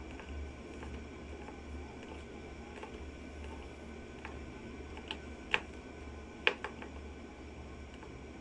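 Screwdriver driving a screw that fixes a stand leg to the back of a TV: faint ticks and clicks as it turns, with two sharper clicks about a second apart midway.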